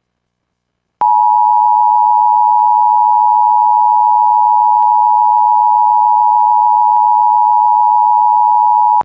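Emergency Alert System attention signal: a loud, steady alarm tone that starts about a second in, holds for about eight seconds and cuts off abruptly. It signals the start of an emergency alert, here a tornado warning.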